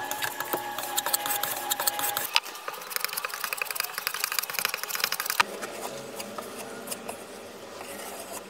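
Plaster and joint compound being mixed and worked with a spatula: rapid scraping and clicking of the blade against the container and wall. The sound changes abruptly twice, about two and five seconds in.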